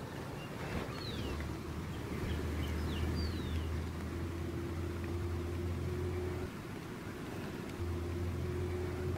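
A low, steady rumbling drone with a faint higher hum over it, breaking off for about a second and then resuming. A few short, falling bird chirps come about one to three seconds in.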